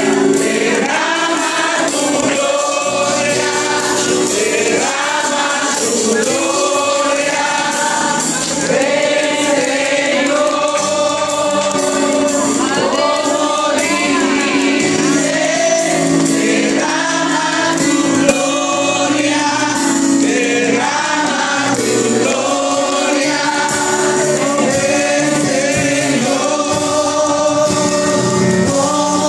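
Gospel worship song: a man sings the lead into a microphone, with a group of voices singing along over steady instrumental accompaniment.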